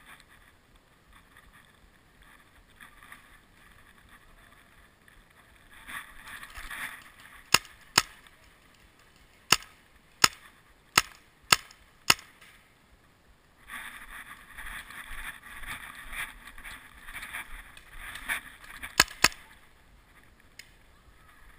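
Paintball marker shots: seven sharp pops spread over about five seconds in the middle, then two more in quick succession near the end. Between them come stretches of rustling and scuffling noise.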